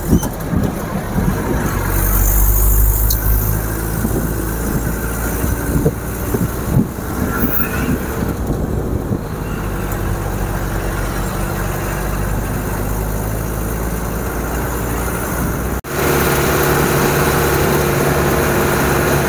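Engine and road noise of an open-top jeep driving, heard from on board. About sixteen seconds in the sound cuts off abruptly and a steadier engine hum follows.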